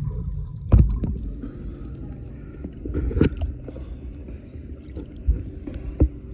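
Pool water sloshing and gurgling around a camera held at the surface, dipping in and out of the water, with a steady low rumble and several sharp knocks and splashes of water against the housing.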